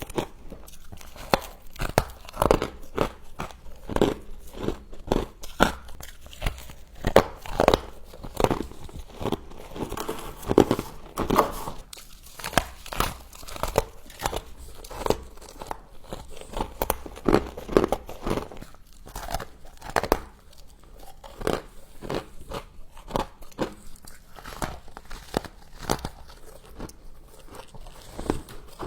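Close-up biting and chewing of frost: dense, irregular sharp crunches, several a second.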